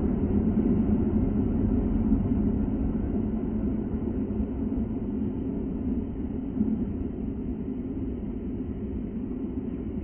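Low, steady rumble of outdoor background noise slowed down five times for a slow-motion replay, so everything is pitched far down and muffled. It eases off slowly.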